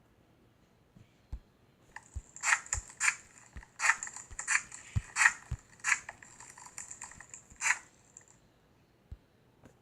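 Slime being squished and worked by hand, giving a run of sharp crackles and pops that starts about two seconds in and stops about six seconds later.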